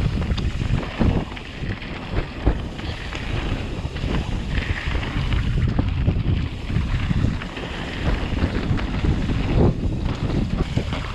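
Wind buffeting the microphone of a point-of-view camera on a mountain bike, over the rumble of knobby tyres rolling on a dirt singletrack. Frequent short knocks and rattles come from the bike going over bumps.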